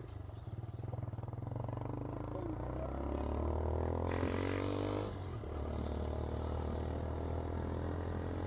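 Motorcycle engine running under way, its pitch rising steadily as it accelerates from about two seconds in, then dropping just after five seconds as the throttle eases or a gear is changed. A short hiss sounds just before the drop.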